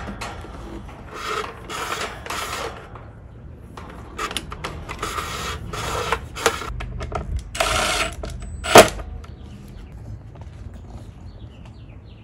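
Insulated electrical wire being pulled through conduit and handled at a battery's wiring compartment: bursts of rubbing and scraping as the wire slides against the fittings, with one sharp click about nine seconds in, the loudest sound.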